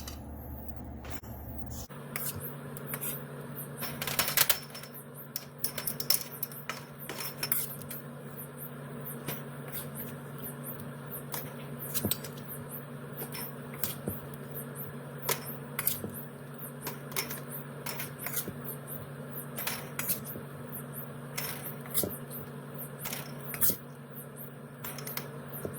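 Light clicks and clinks, several every few seconds and uneven, as peach pieces and a utensil knock against glass canning jars while they are packed. A steady low hum runs underneath.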